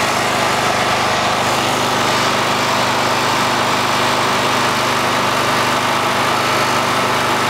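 Portable petrol generator engine running steadily under load, powering a soft-serve ice cream machine: a constant, unchanging engine hum.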